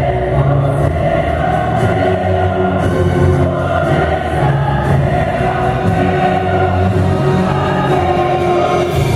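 Loud music with a choir singing over a sustained orchestral backing.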